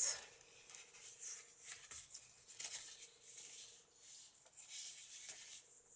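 Paper pages and tucked-in tags of a handmade journal rustling as they are turned and handled, a string of soft brushing swishes over a faint steady hum.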